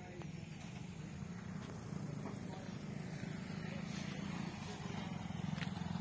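An engine running steadily in the background, a low, even hum that grows a little louder, with a few faint clicks over it.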